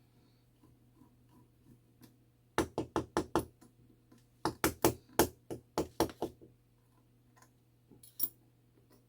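Sharp knocks from the clock movement being worked on as it is taken apart: a quick run of about five, then a longer run of about eight, then a couple of faint ones near the end.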